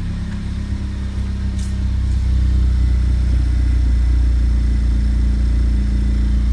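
Honda Civic Type R (FK8) 2.0-litre turbocharged four-cylinder running through a freshly fitted Invidia Q300 cat-back exhaust and front pipe. The exhaust gives a steady low drone that grows louder about two seconds in, then holds.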